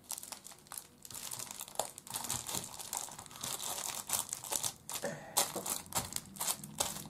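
Plastic wrapping crinkling as an unopened, cellophane-wrapped pack from a mahjong set is handled and put back into its case, with irregular small crackles and ticks throughout.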